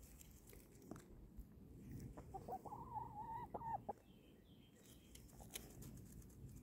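A chicken clucking: a run of short, joined notes about two seconds in, lasting about a second and a half. A few faint clicks come before and after it.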